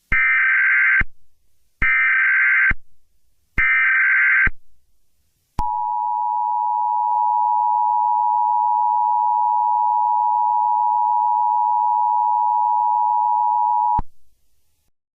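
Emergency Alert System tones: three one-second bursts of the digital SAME header data, followed by the steady two-tone attention signal held for about eight seconds before cutting off. This is the standard opening of an emergency alert broadcast.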